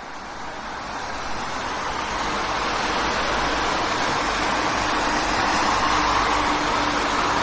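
City street traffic: a steady wash of car and engine noise with a low rumble, fading in over the first couple of seconds and swelling slightly about six seconds in.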